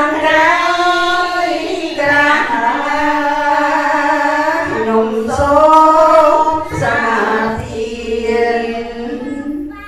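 Women's voices chanting a Buddhist devotional text in a slow, melodic sung style, led by a woman singing into a microphone, in long held phrases of a few seconds each.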